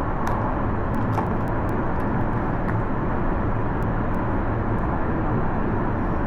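Steady rumble of traffic, with a few faint small clicks.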